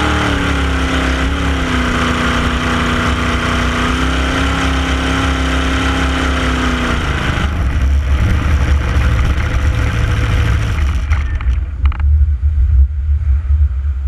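Small race boat's engine running at speed, heard onboard, with a steady engine note that fades out about seven seconds in. After that there is a loud rush of wind and water with rough low rumbling and irregular thumps.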